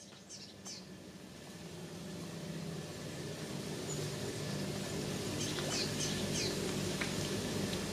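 European greenfinches giving short, high, falling call notes: two near the start and a few more between about five and seven seconds in, over a steady low rumble. The sound fades in over the first few seconds.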